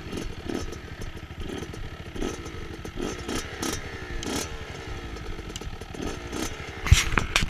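Dirt bike engine running and revving up and down, with a sharp knock near the end.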